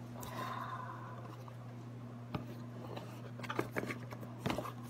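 Cardboard box of a Sony ZV-1 camera and its paper leaflets being handled: a soft scrape of paper and cardboard sliding in the first second and a half, then a few light clicks and taps, over a steady low hum.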